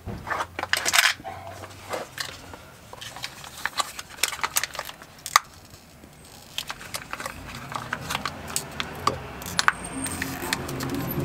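Irregular clicks, taps and light rattles of small objects being handled, scattered unevenly through the stretch.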